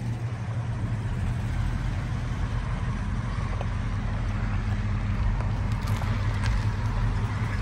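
A vehicle engine running steadily at idle, a low, even rumble.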